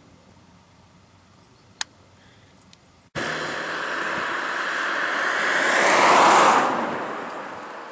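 A single sharp click about two seconds in, then the noise of a passing vehicle starting abruptly about three seconds in, swelling to a peak and fading away as it goes by.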